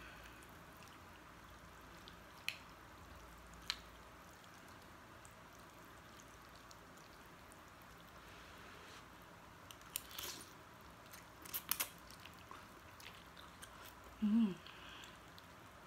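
A person eating instant noodles with a metal spoon and fork, quietly: two sharp clicks a few seconds in, then a run of slurping and mouth clicks as a forkful of noodles is eaten about ten to twelve seconds in. A short rising hum of the voice comes near the end.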